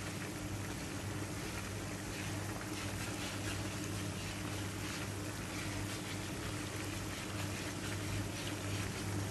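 Pan of pork and intestine simmering with a steady bubbling hiss and crackle while pig's blood trickles in through a strainer, over a steady low hum.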